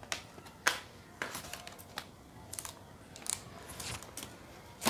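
Plastic packaging crinkling and rustling in irregular short crackles and clicks as items are pulled from a clear plastic bag, the sharpest click a little under a second in.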